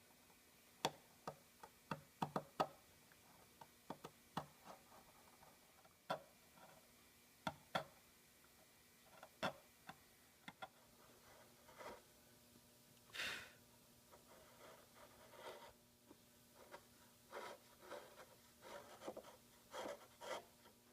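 Hand tools working wood: irregular sharp taps and clicks with short bouts of scraping, most of them faint.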